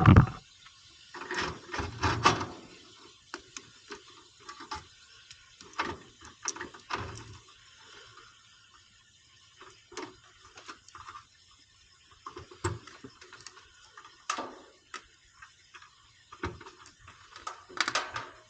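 Scattered clicks, taps and clatter of hand tools and metal parts being handled, with quiet gaps between them.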